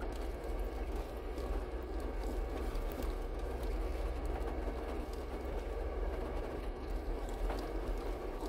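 Steady rumble of a 4x4 driving slowly over a rocky gravel trail, heard from inside the cab: engine running and tyres rolling over stones, with small knocks and rattles.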